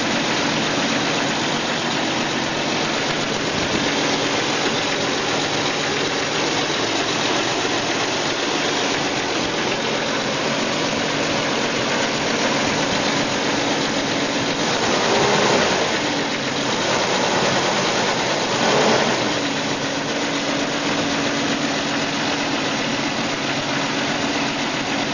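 1993 Jeep Cherokee's four-cylinder engine idling after a cold start, with two brief revs about fifteen and nineteen seconds in. The owner suspects a rough idle with piston slap or tapping lifters.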